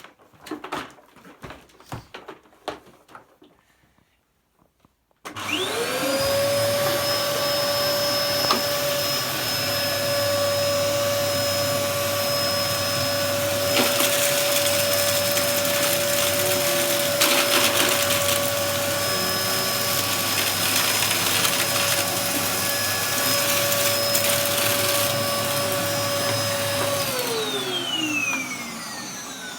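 Hoover Hurricane vacuum cleaner switched on after a few clicks and knocks. Its motor spins up to a steady high whine with a rush of air and runs for about twenty seconds. It is switched off near the end, the whine falling as the motor winds down.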